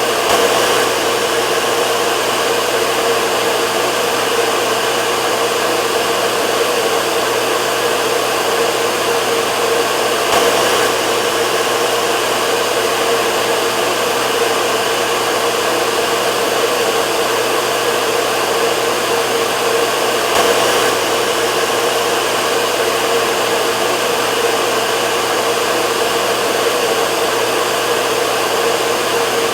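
Hair dryer running continuously at a steady speed: an even rushing hiss of blown air over the motor's hum, swelling slightly about every ten seconds.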